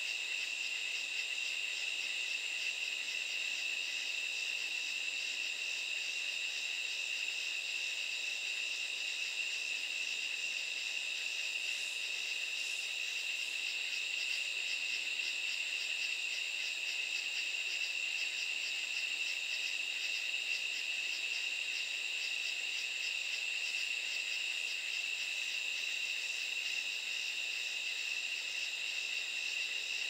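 Night chorus of katydids: a dense, high-pitched trilling that holds steady without a break, a strong even tone underneath with a faster pulsing layer above it.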